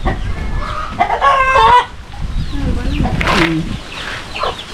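Domestic chickens clucking and calling, with one long, strong call about a second in.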